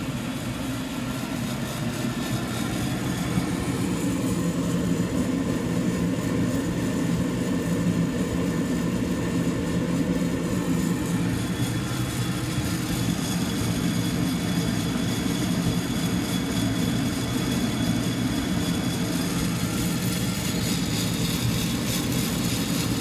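Sonofresco fluid-bed air roaster running, its hot-air blower making a steady, even rushing hum as it churns still-green coffee beans in the glass roasting chamber.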